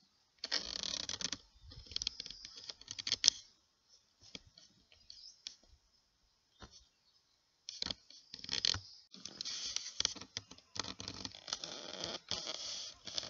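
Irregular rustling and clicking from a handheld camera being handled and moved about, in bursts with a lull in the middle and busier handling near the end.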